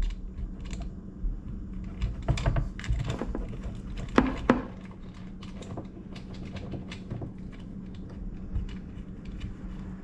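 Irregular small clicks and clatter of hardware being handled at a boat battery's terminals, as charger leads are fitted and the terminal nuts are worked on, with a steady low hum underneath. The clicks come thickest a few seconds in.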